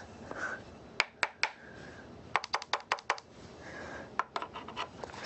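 A series of light, sharp clicks and taps from small hard parts being handled: three about a second in, a quick run of about seven near the middle, and a few more near the end.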